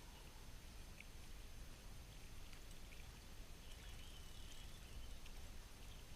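Faint outdoor background: a steady low rumble with scattered short, faint high chirps, like small birds or insects, and a thin steady high tone.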